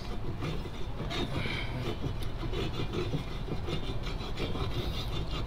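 Irregular scraping and rubbing as the nozzle of a tube of Samad glue is drawn along the rim of a 10-inch speaker's metal basket, spreading adhesive where the cone surround will sit. A steady low rumble lies underneath.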